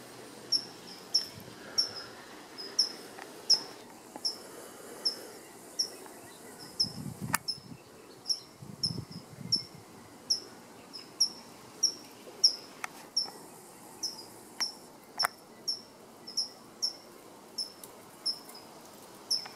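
Short high-pitched chirps repeating about once or twice a second without pause, the loudest sound throughout. A few faint clicks and a low rustle come around the middle.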